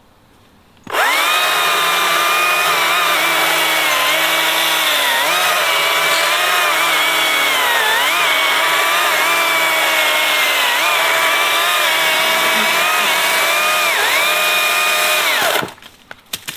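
Stihl battery-powered electric chainsaw cutting through a log: a steady high whine that starts about a second in, dips in pitch now and then as the chain bites into the wood, and stops shortly before the end.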